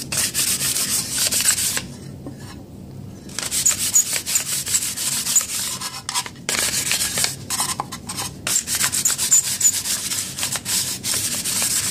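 Fine-grit sandpaper rubbed quickly back and forth by hand over an aluminum GI rifle magazine body, a scratchy rasping in rapid strokes. It pauses for about a second and a half about two seconds in, and briefly twice more. The sanding lightly roughs up the already scratched finish so paint will take.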